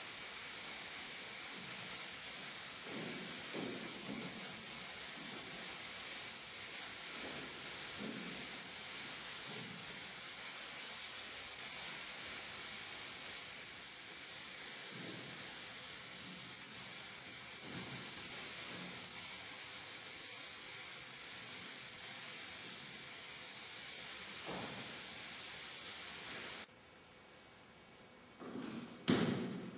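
A steady high hiss, with a few faint low knocks under it, that cuts off suddenly about three seconds before the end, followed by a short louder noise.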